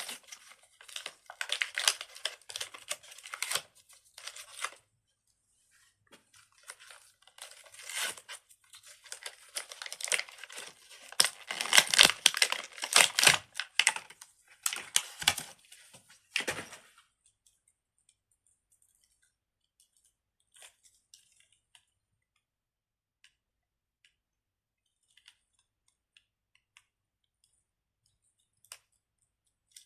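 Plastic packaging being torn and crinkled open in repeated bursts, loudest about two-thirds of the way through the noisy stretch; after about seventeen seconds it stops, leaving only a few faint clicks.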